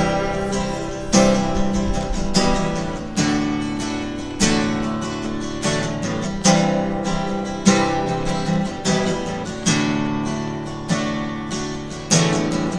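Acoustic guitar strummed alone, a fresh chord struck about once a second and left to ring.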